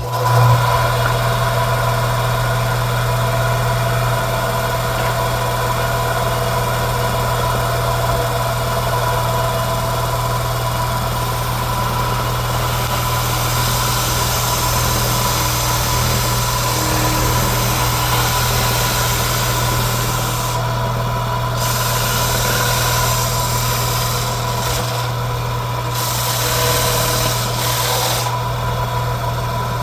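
An electric power tool switches on and runs steadily with a strong hum, sanding the template. Its scratchy sanding hiss grows after about twelve seconds and breaks off briefly a few times near the end.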